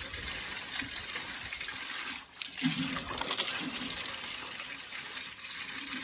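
Rushing water: a steady, even hiss, dipping briefly about two seconds in.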